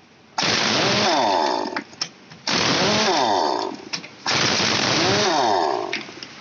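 Pneumatic impact wrench hammering on the wheel nuts of a JCB backhoe loader's wheel, run in three bursts of about a second and a half each, each starting and stopping sharply.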